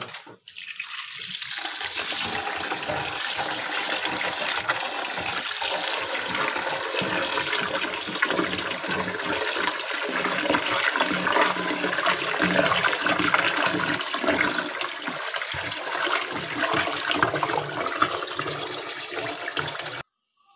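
Water from a kitchen tap running into a pot of rice in a steel sink, with a hand swishing the grains to wash them. The water comes on in the first couple of seconds, runs steadily and cuts off suddenly near the end.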